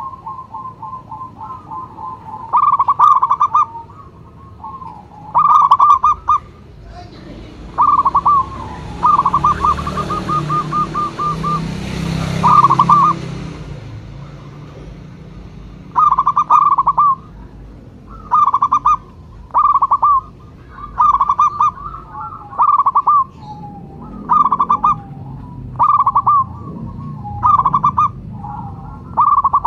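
Zebra dove (perkutut) cooing: short trilled, stuttering phrases repeated about every second or two, the calling song used to lure and prompt other doves. A rushing noise swells and fades in the middle.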